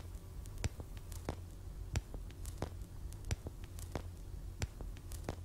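Old-film crackle effect for a countdown leader: irregular sharp clicks and pops, about one or two a second, over a low hum.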